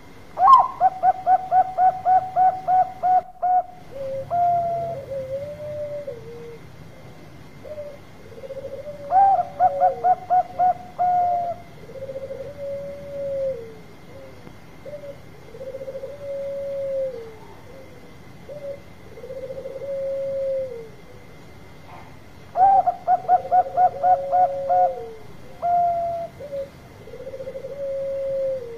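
Zebra dove (perkutut) singing its cooing song three times, each phrase opening with a quick run of about ten short clipped notes and ending in several longer, lower coos that fall at the end.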